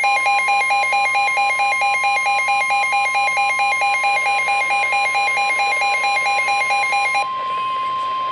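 NOAA Weather Radio 1050 Hz warning alarm tone, a steady single-pitch tone that signals a warning is about to be broadcast. A second electronic alarm beeps rapidly over it, alternating between pitches about six times a second, and cuts off about seven seconds in.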